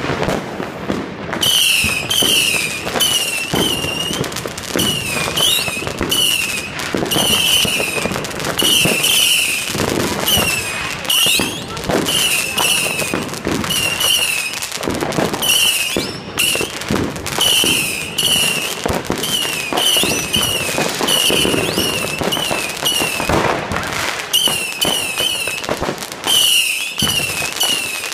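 Fireworks going off: a continual run of bangs and crackle, with many short, high whistles that fall in pitch, about one or two a second.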